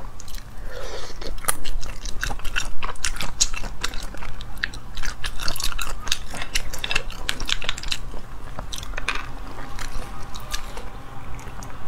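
Close-miked eating of spicy sea snails: many short, wet clicks and smacks of chewing and mouth sounds, densest through the middle of the stretch.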